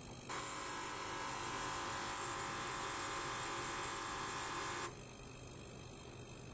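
Portable ultrasonic cleaner running with stainless steel containers standing in its water bath: a loud, high buzzing hiss of the transducers and cavitating water. It switches on suddenly about a third of a second in and cuts off just before five seconds.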